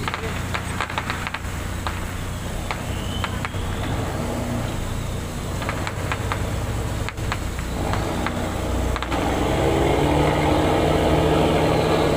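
Ship's engine running with a steady low hum, with scattered sharp clicks; about eight seconds in it grows louder and fuller, as if picking up power.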